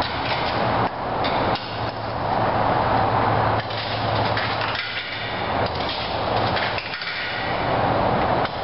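A train passing: a steady rush of noise with repeated knocks and clanks, with several sudden dips in level.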